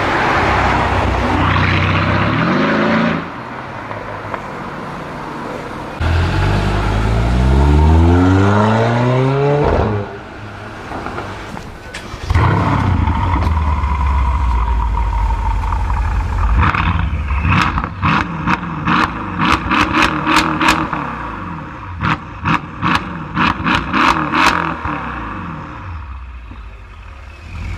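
Mercedes-AMG performance car exhaust: a hard acceleration with the engine note climbing in pitch, then heavy revving with a rapid string of sharp exhaust pops and crackles.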